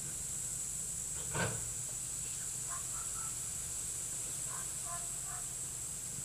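Outdoor yard ambience: a steady high-pitched hiss under a low hum, one short call about a second and a half in, and a few faint chirps after it.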